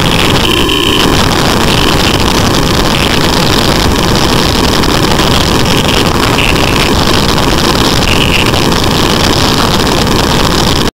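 Steady, loud traffic din of a busy street, with car and motorbike engines running. A few short, higher-pitched sounds stand out over it.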